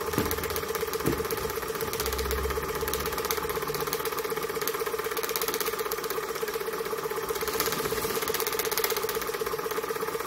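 Stirlingkit Retrol model horizontal steam mill engine running smoothly at a steady speed: a fast, even beat over a steady hum, beautifully quiet.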